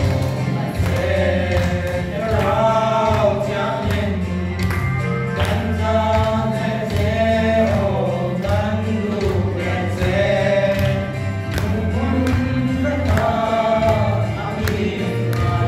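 Three young men singing a gospel song together through a microphone over backing music with a steady bass and beat.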